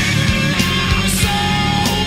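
Rock music with drums, bass and guitar playing at a steady beat.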